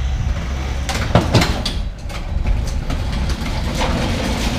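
Wheel dollies under a wrecked Audi URS4 rolling across a rough concrete driveway as the car is shoved along: a steady low rumble with a couple of sharp knocks about a second in and lighter rattles after.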